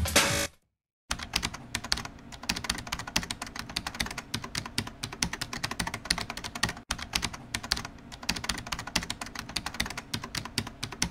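Rapid, irregular typing-like clicking, many clicks a second, starting about a second in after a brief silence.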